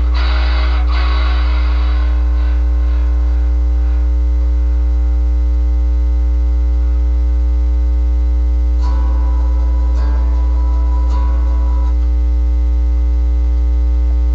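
Loud, steady electrical hum and buzz with many overtones. A hissy layer fades out in the first few seconds, and a higher tone joins the buzz for about three seconds near the end.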